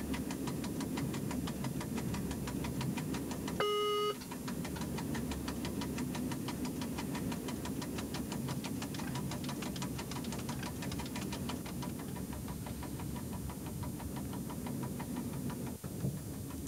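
Steady running noise in a train driver's cab, with a single short electronic beep from the KVB speed-control panel about three and a half seconds in.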